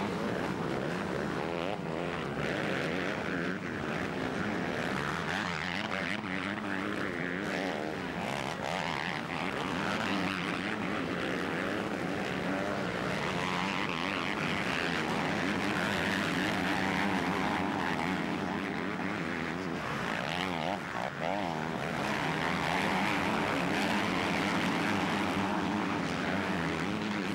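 Several motocross bikes' engines revving hard as the bikes race around the dirt track. The pitch rises and falls constantly as the riders open and close the throttle over the jumps and through the turns.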